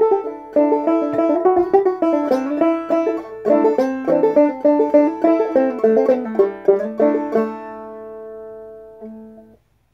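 Gold Tone CC-OT open-back banjo played clawhammer style in Sawmill (mountain modal) tuning, capoed up two frets: a quick run of plucked and brushed notes, then the final chord rings out for about two seconds, a softer note follows, and the sound stops just before the end.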